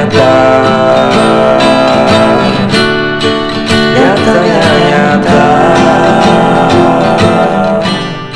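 Background music with guitar, fading out near the end.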